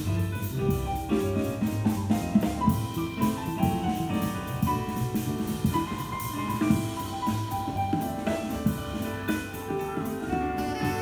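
Jazz quartet of tenor saxophone, piano, bass and drums playing live, with steady cymbal and drum strokes under the piano and bass.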